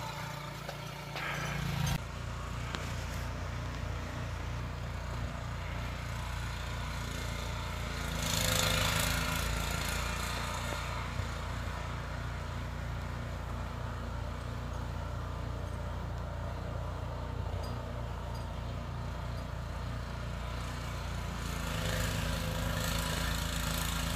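Gas snowblower's small engine running steadily, with a brief louder rush of noise about eight seconds in and a rise again near the end.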